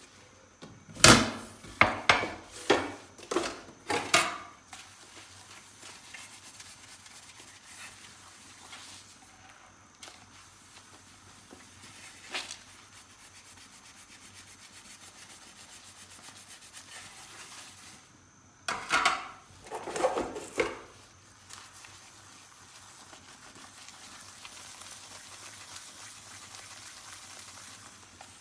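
Dishes being washed by hand: a run of clinks and knocks of dishware being handled in the first few seconds, a single knock near the middle, and another cluster of knocks about two-thirds through. Near the end a tap runs softly.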